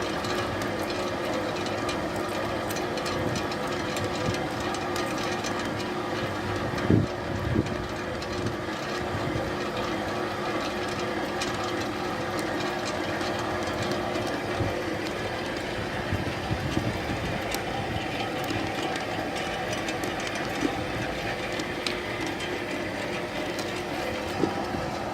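Horizontal pellet-making machine running steadily, a constant mechanical drone with several steady tones through it. A couple of short knocks come about seven seconds in.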